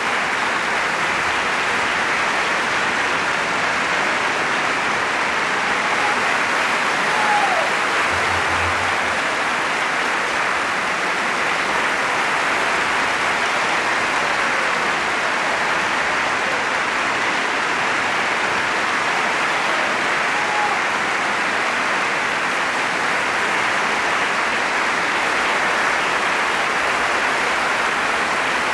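Theatre audience applauding, a dense, unbroken clapping that holds steady throughout.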